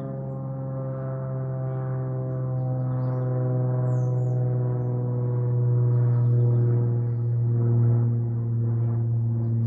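Ambient background music: a steady low drone under layered, gong-like held tones that shift slowly, with no beat.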